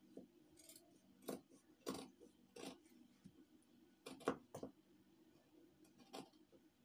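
Large fabric scissors snipping through folded black fabric: a string of short, crisp cuts about a second apart, with two close together about four seconds in.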